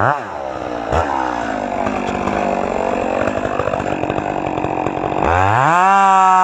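Two-stroke chainsaw: its steady high engine note drops and turns rough as the chain bites into the wood, cutting under load with a knock about a second in, then climbs back to a steady high whine near the end as the saw runs free again.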